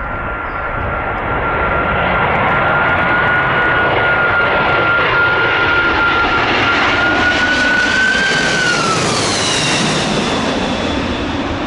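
Boeing 747-400 freighter's four jet engines on landing approach, a loud rushing rumble with a steady high whine. The whine and the higher tones drop in pitch about eight to nine seconds in as the jet goes past.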